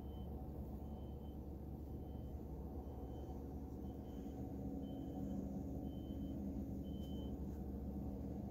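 A vehicle's back-up alarm beeping about once a second, stopping about seven seconds in, over a low steady rumble.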